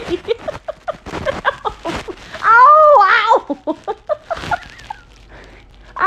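Blue-and-gold macaw calling: one loud call about a second long, beginning just before the middle, that rises and then falls in pitch. Short clicks and rustles come before and after it.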